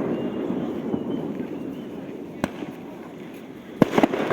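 Aerial firework shells bursting: one sharp bang about two and a half seconds in, then a quick run of three or four bangs near the end, over a continuous low rumble and crackle.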